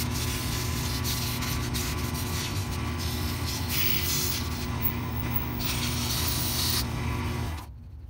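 Wood lathe running with sandpaper held against a spinning red ash wand blank: a steady motor hum under a rasping hiss that swells and fades as the paper is pressed on. The sound cuts off sharply near the end.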